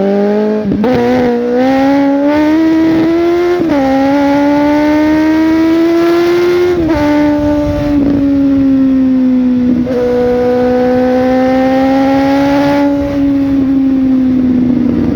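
Suzuki GSX-S750's inline-four engine accelerating hard through the gears. Its pitch climbs and drops sharply at three upshifts about 1, 4 and 7 seconds in, then holds at a steady high pitch and eases off slowly near the end.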